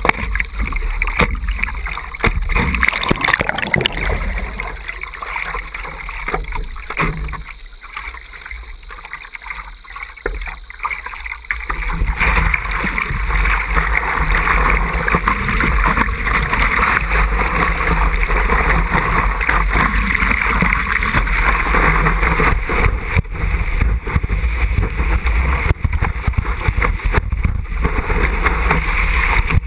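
Water splashing and sloshing against a surfboard as it is paddled, heard close from a camera on the board's nose. About twelve seconds in it turns into a steady, loud rush of water and whitewater as the board catches a wave and is ridden.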